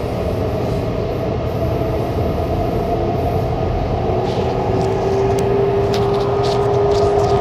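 Taichung Metro Green Line electric train running with a steady rumble. About halfway a whine from its Mitsubishi SiC-VVVF motor drive comes in and rises slightly in pitch, and a few short high squeaks follow near the end.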